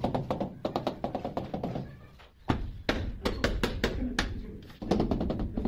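A small hammer tapping rapidly on old glazed ceramic wall tiles, several light knocks a second. After a short pause about two seconds in, louder and more irregular knocks follow.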